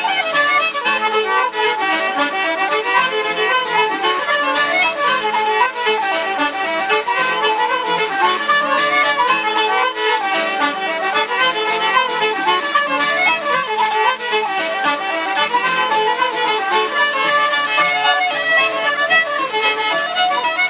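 Irish traditional band playing a fast dance tune, fiddle to the fore, over steady accompaniment.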